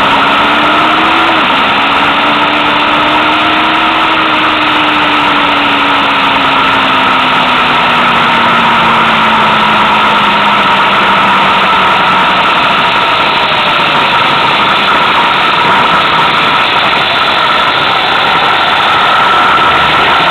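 Motorcycle riding at speed, with steady rushing wind and road noise over the microphone and the engine note underneath. The engine's pitch rises briefly, drops sharply about a second in, then falls slowly as the bike eases off.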